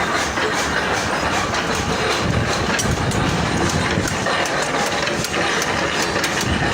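Forge-shop machinery running steadily, with scattered light clicks and knocks over it.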